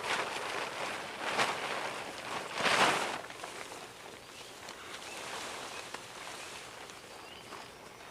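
Rustling, with two louder swishes about a second and a half and three seconds in, then softer rustling.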